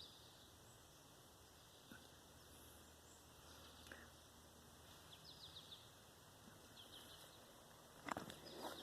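Near silence, with faint, short high bird chirps a few times and a brief scuffing noise near the end.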